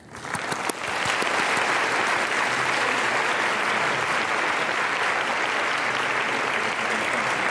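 Audience applauding: a few scattered claps that swell into steady, full applause within about a second.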